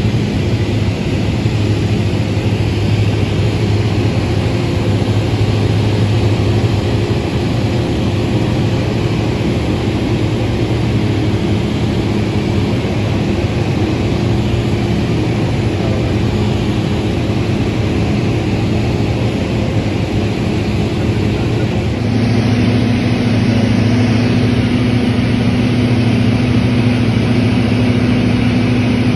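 Light aircraft's engine and propeller droning steadily, heard from inside the cabin with airflow noise. About 22 seconds in the hum shifts and gets a little louder, with a higher note coming in.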